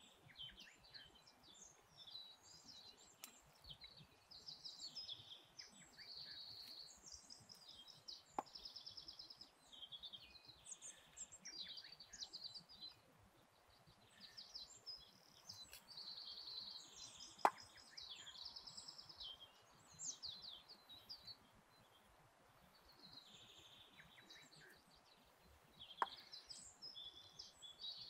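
Small songbirds chirping and trilling on and off in woodland, over a quiet outdoor background. Three sharp knocks stand out, about nine seconds apart, the middle one loudest.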